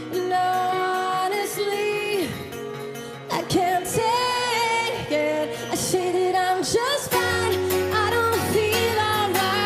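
A rock band plays live while a female lead singer sings a sung melody line over guitars and drums. A deeper bass part comes in about seven seconds in.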